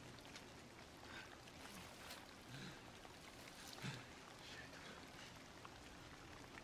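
Near silence: a faint hush with scattered soft ticks and two quiet low knocks, one under three seconds in and one about four seconds in.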